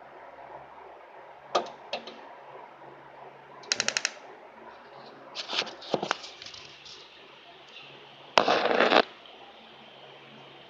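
Kitchen handling sounds: scattered sharp clicks and knocks, a quick rattle of clicks about four seconds in, and a louder short rasping burst near the end.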